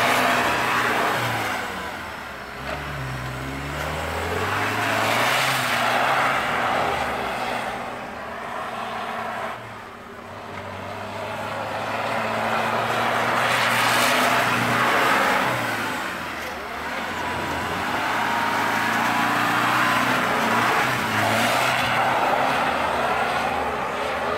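Land Rover Discovery 300Tdi's 2.5-litre four-cylinder turbodiesel revving under load in deep snow, rising and falling in repeated surges every several seconds.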